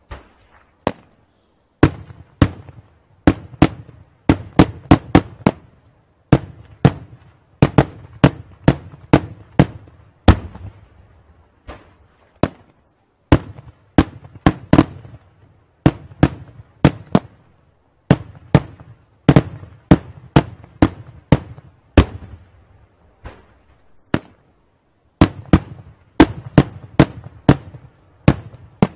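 Daytime aerial fireworks bursting overhead: a long, irregular series of sharp bangs, often several a second, with brief pauses between volleys.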